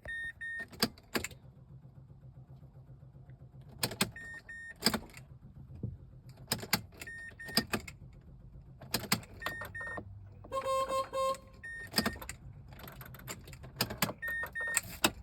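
Sharp clicks, mostly in pairs, with short electronic beeps, as the ignition key of a 2007 Mazda 3 is turned over and over without the engine cranking; a quick run of warning chimes comes about ten seconds in. The car acts as if its battery is dead.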